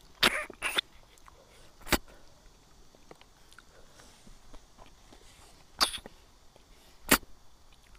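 Loud, short slurps of a person sucking cooked snails out of their shells by mouth. There are five: two in quick succession at the start, one about two seconds in, and two more near the end.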